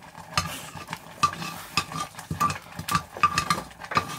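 Metal spoon stirring a thick mixture in a metal cooking pot on a wood fire. It scrapes and clinks against the pot's side about two to three times a second, each clink ringing briefly.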